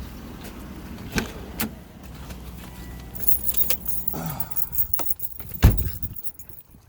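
Keys jangling and clicking over a car engine idling. Near the end comes one loud thump, and right after it the engine's low hum stops.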